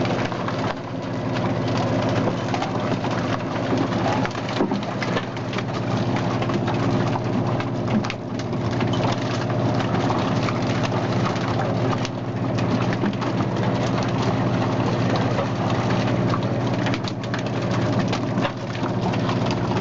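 Salmon purse seiner's engine running steadily on deck, a constant drone, with wet splashing and slapping of freshly landed salmon on the deck over it.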